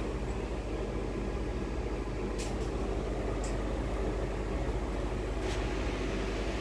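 Steady hum and rumble inside an air-conditioned Indian Railways ICF coach, with a few faint short ticks about two and a half, three and a half and five and a half seconds in.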